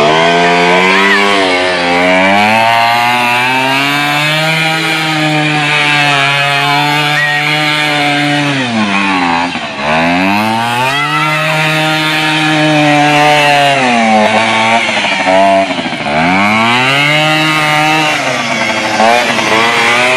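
Small engine of a youth ATV running at high revs as it is ridden in circles on dirt. The revs drop sharply and climb back twice, about halfway through and again about three-quarters of the way in.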